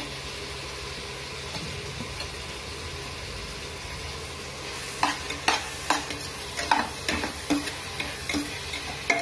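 Vegetables sizzling in hot oil in a pressure cooker. From about five seconds in, a slotted steel spoon stirs them, clinking and scraping against the pot.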